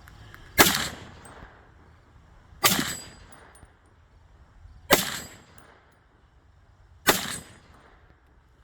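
Four rifle shots about two seconds apart, each followed by a brief metallic ring as the bullet strikes a steel target plate.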